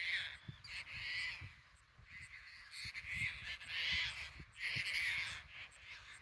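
A bird calling over and over: about six rough calls, each around half a second long, with short gaps between them.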